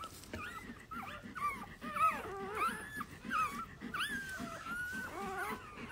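A litter of newborn golden retriever puppies squeaking and whimpering while they nurse. The squeaks are many, short and overlapping, gliding up and down, several a second.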